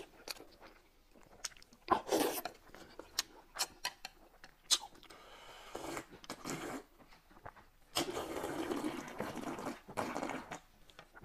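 Close-up eating sounds: first scattered chewing and lip smacks, then slurping broth straight from a wide plate in long drawn sips, the longest from about eight to ten and a half seconds in.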